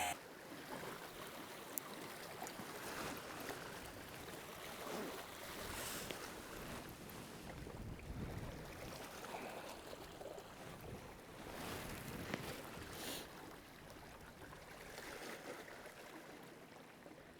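Faint sea ambience on a fishing boat: water washing against the hull and light wind, swelling and easing every few seconds.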